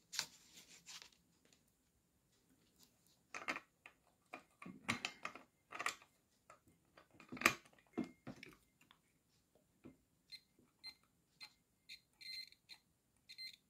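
Light clicks and scrapes of fingers and a multimeter probe on the kettle's plastic thermostat switch unit, then, from about ten seconds in, a string of short, broken beeps from the multimeter's continuity buzzer. The beeps signal that the circuit through the switch is closed, though the contact is weak and flickering.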